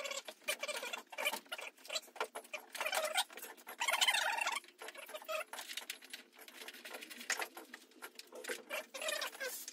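Small clicks, taps and rattles of hands and tools stripping parts off around the carburettor of a Suzuki ATV, with a louder scraping rustle about four seconds in.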